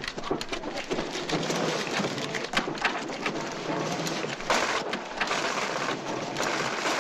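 Paper banknotes running through a note-counting machine: a dense, rapid papery rattle that keeps up steadily.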